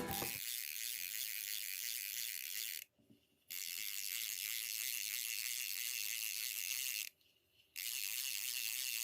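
Doyo Liger AL G2 baitcasting reel's mechanism ticking rapidly and steadily as it is worked, broken twice by short gaps of silence.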